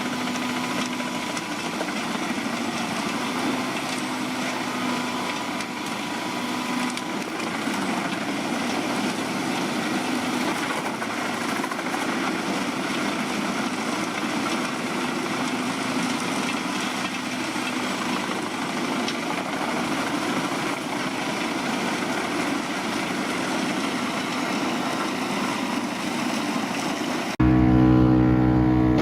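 Jenz HEM 820 wood chipper running steadily while it chips thick branches, a dense, even machine noise with a faint steady tone. Near the end it gives way abruptly to a louder, deeper engine drone.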